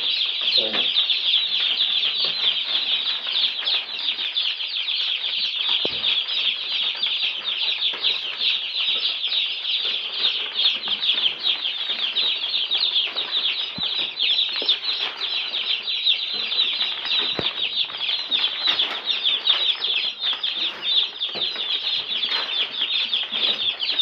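Dense, continuous high-pitched peeping from a crowd of day-old Cobb 500 broiler chicks, many chicks calling at once.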